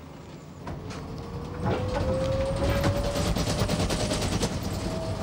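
Trolleybus pulling away under power: the electric traction motor's whine rises steadily in pitch as it gathers speed. From about two seconds in it is joined by a fast, dense clattering rattle, and the sound grows louder.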